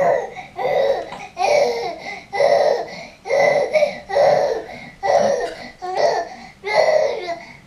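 A baby babbling and laughing in short, repeated bursts, about nine in a row.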